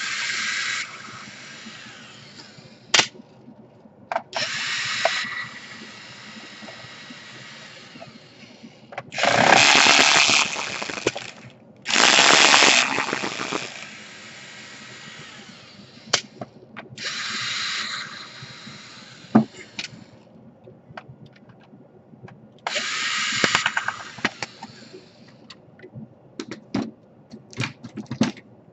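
Small electric screwdriver whirring in short bursts of a second or two, about six times, as screws are run out of a laptop's case, with sharp clicks of small parts and tools between the bursts.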